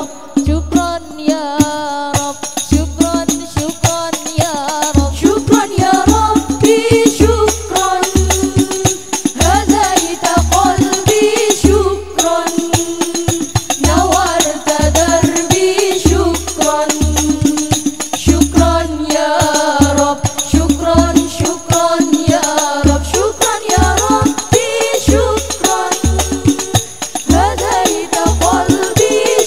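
Al-Banjari sholawat ensemble: several women's voices singing a devotional melody together into microphones, over a steady rhythm of hand-beaten terbang frame drums with deep bass strokes and sharp slaps.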